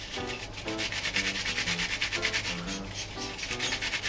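Salt-rubbing okra in its plastic mesh net against a cutting board: a scratchy rasping of salt grains and netting, in fast, even back-and-forth strokes. Light background music plays underneath.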